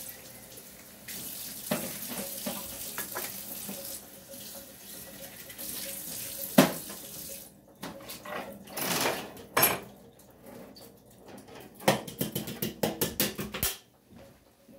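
Water running from a kitchen tap while dishes clink, with a loud clank about halfway through. The water then stops, and a run of quick clattering knocks follows near the end.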